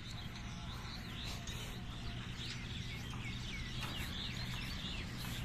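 Many small birds chirping in quick, short calls, over a steady low hum.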